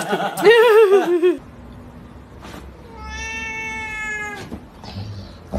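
A cat yowling with a wavering pitch for about a second and a half, then after a pause one long, steady meow that drops off at the end.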